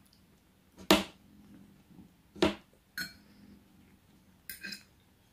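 Metal fork on a dinner plate and in the mouth during eating: two sharp clicks, about a second in and two and a half seconds in, a lighter click at three seconds, and a short clink near the end, with quiet chewing between.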